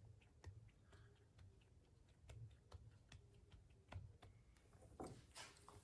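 Near silence: faint, irregular light ticks as hands handle a soft clay slab draped over a plaster mold.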